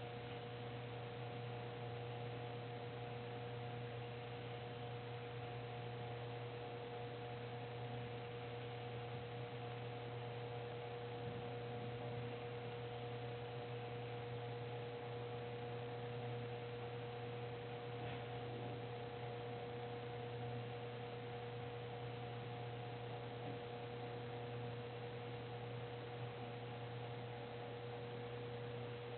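Electric motor of a Theater House motorized projection screen running with a steady hum, with no clunking: the clunking fault has been cured by a replacement part from the maker.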